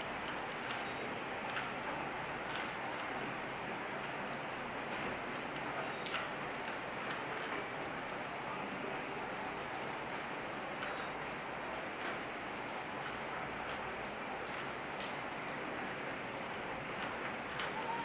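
Rubik's cube being turned by hand, its layers giving faint irregular clicks, with one sharper click about six seconds in, over a steady hiss.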